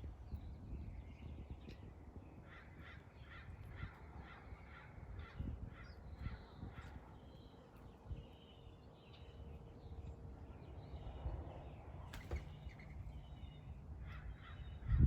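A bird giving quick runs of short calls, about three a second, twice, over a low background rumble.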